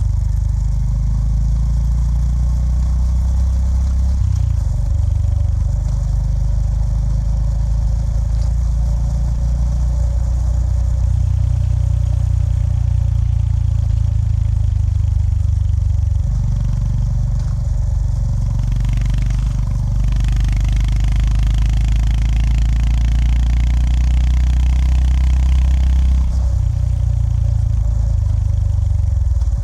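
Honda GB350S single-cylinder engine running under way, its low note shifting several times with the throttle. A hiss joins from about twenty seconds in and drops away about six seconds later.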